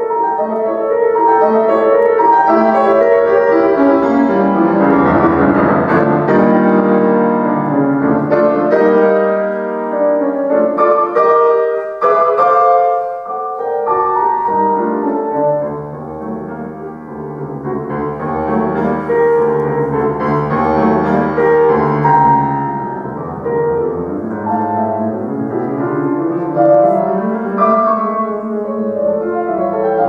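Grand piano played solo, a classical piece in full chords without a break. About halfway through it grows quieter for a moment over deep held bass notes, then builds again.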